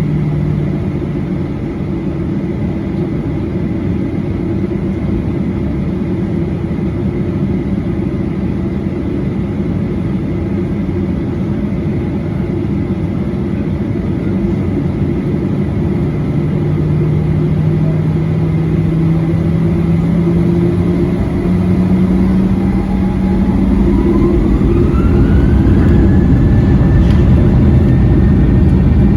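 Boeing 737-800's CFM56-7B turbofan engines heard inside the cabin as a steady loud rumble. About three-quarters of the way through, a whine glides up in pitch and then holds as the engines spool up, and the noise grows louder, as for the takeoff run.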